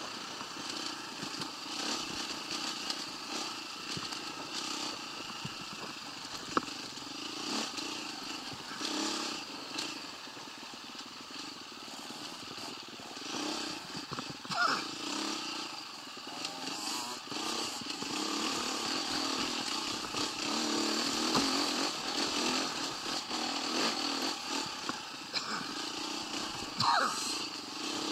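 125cc motorcycle engine running as the bike is ridden, revs rising and falling, with quick rises in pitch about halfway through and again near the end.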